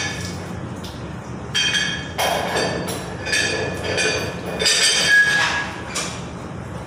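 Metal tools clinking and knocking against the element port of a storage water heater during an element change, a series of ringing metallic clinks that are loudest about five seconds in, over a steady low machinery hum.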